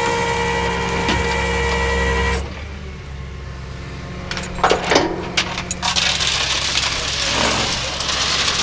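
A steady machine hum with several whining tones cuts off abruptly about two and a half seconds in. A few sharp metal clanks and clinks follow, then a steady rushing noise.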